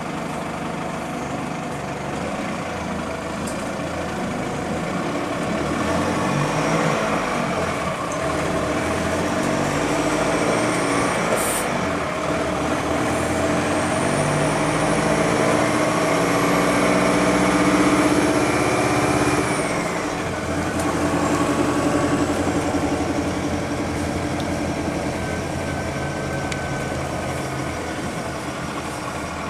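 Bus drivetrain heard from inside the passenger cabin: a Cummins ISBe diesel with a ZF AS-Tronic 6-speed semi-automatic gearbox pulling under way. The engine note and a high whine rise together for several seconds, then drop off suddenly about two-thirds of the way through, and the bus runs on more steadily. A brief sharp sound comes about a third of the way in.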